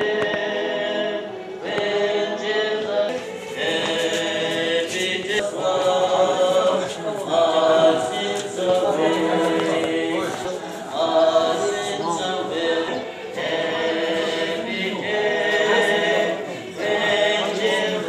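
A choir singing, a group of voices holding long notes in phrases with short breaks between them.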